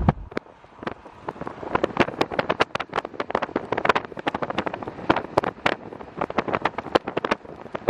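Scattered drops of precipitation striking the car's roof and glass: irregular sharp taps, several a second, over a low background.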